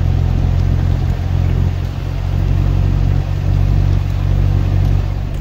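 Truck driving across wet beach sand: a steady, loud, low drone of engine and tyres.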